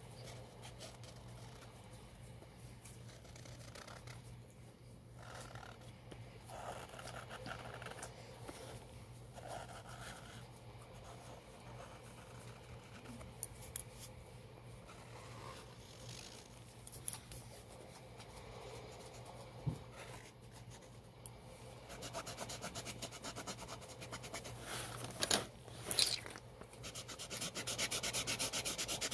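Black paint marker tip rubbing and scratching across a textured canvas board in slow drawing strokes, with a few sharp taps along the way. Near the end the strokes become quick and dense as the marker fills in black, and the rubbing gets louder.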